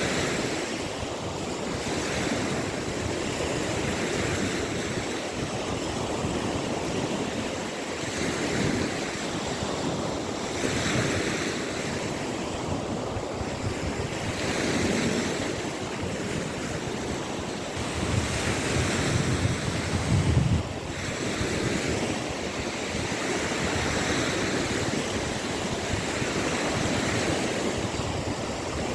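Small waves of the Gulf of Finland washing onto the shore, surging and easing every few seconds. Wind buffets the microphone, most strongly about two-thirds of the way through.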